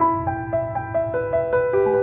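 Soft background music: gentle piano or electric-piano notes played one after another over a low sustained pad.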